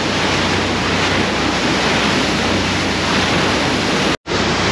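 Steady rush of a fast boat's wake spray with wind buffeting the microphone, over a low, steady hum from the boat's engine. The sound cuts out for a moment about four seconds in.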